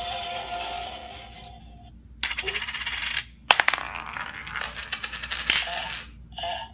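No-Face coin bank toy eating a coin: a held electronic tone, then its mechanism running in two short noisy spells with sharp metallic clicks of the coin inside, as the dish lowers from the mouth.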